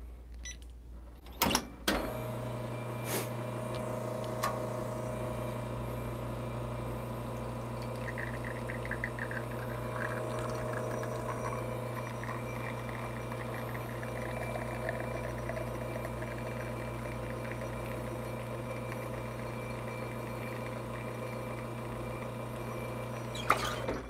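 Lelit espresso machine pulling a shot. A click or two as the brew starts, then the pump hums steadily for about 22 seconds while espresso pours into the cup, and it stops just before the end.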